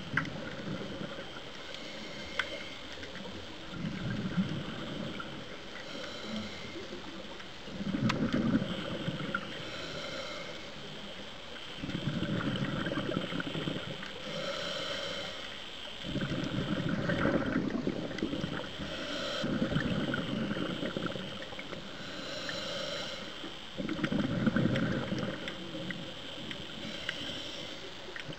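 Scuba diver breathing through a regulator underwater: a short hissing inhale, then a louder low bubbling exhale, repeating about every four seconds.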